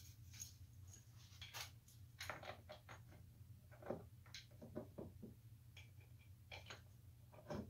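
Faint, scattered light knocks and scrapes of a wooden rocker being handled and fitted against the legs of an upholstered rocking chair, over a low steady hum.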